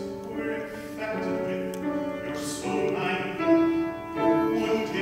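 Piano accompaniment playing the introduction to a musical-theatre song, slow chords with held notes, before the singer comes in.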